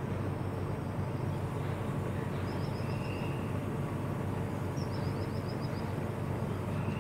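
Steady low rumble of distant traffic, with two short, fast high-pitched trills about two and a half seconds in and again near five seconds.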